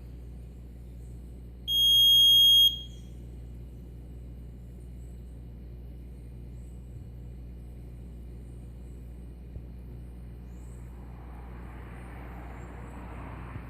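Alarm buzzer of an FPGA real-time clock going off: one loud, steady, high-pitched beep lasting about a second, over a low steady hum. It signals that a set alarm time has been reached.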